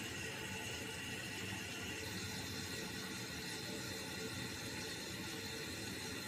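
Toilet tank refilling through a newly installed fill valve: a steady hiss of running water.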